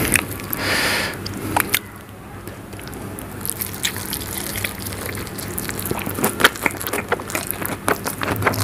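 Close-miked wet eating sounds: a piece of egg omelette soaked in curry gravy squelching and slurping for about the first second, then wet chewing with short smacking clicks that come thicker toward the end.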